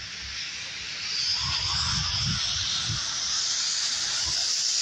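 Car tyres hissing on a rain-soaked road as a car approaches, a wet spray sound that grows louder about a second in and holds, with a few low bumps in between.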